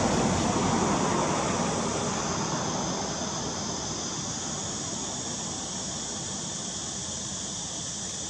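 Steady rushing engine noise from a distant passing vehicle, slowly fading away.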